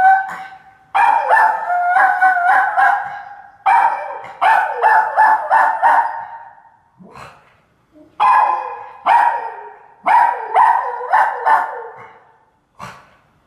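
Poodle howling: a held howl note that fades about half a second in, then four runs of short, quickly repeated howling yelps with brief pauses between them.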